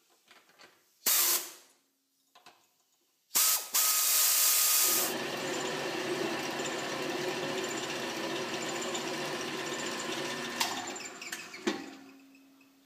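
Air ratchet driving clamp nuts down in two short bursts. Then a drill press runs steadily for about six seconds while a 1/2-inch twist drill cuts into steel plate, and it winds down near the end.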